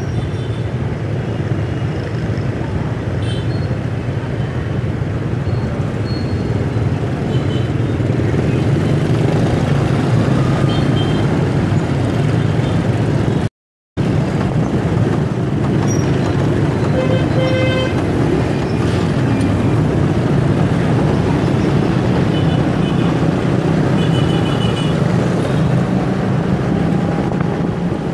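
Steady street traffic noise of engines and rumble, with a couple of short vehicle horn toots in the second half. The sound cuts out for a split second just before the middle.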